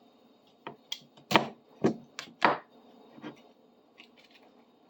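Knife blade scraping and chipping dried glue off a bar clamp: five short, sharp scrapes in the first two and a half seconds, then only faint ticks.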